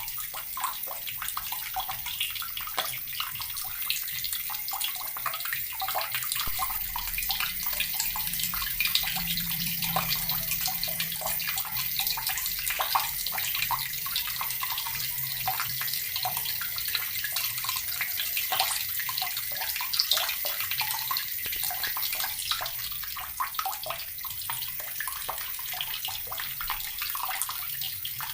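Water running from a tap and splashing steadily, a continuous hiss full of small splashes.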